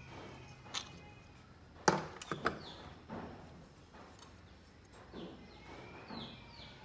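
Handling noise from a metal-cased motor speed controller and a spindle motor being picked up and turned over by hand: a few knocks and clicks, the loudest about two seconds in. Faint high chirps come and go.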